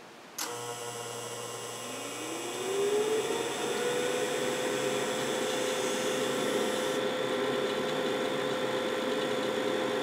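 Carrier 92% condensing gas furnace starting a heating call: a click about half a second in, then a low buzz for about three seconds, which the owner attributes to the zone 2 damper closing. The draft inducer motor spins up with a rising whine and settles into steady running.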